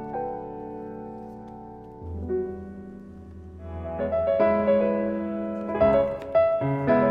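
Background piano music, slow sustained chords that swell fuller and louder about halfway through.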